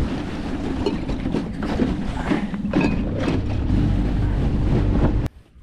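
Outboard motor of a fishing boat running steadily, with water and wind noise over it; it cuts off suddenly about five seconds in.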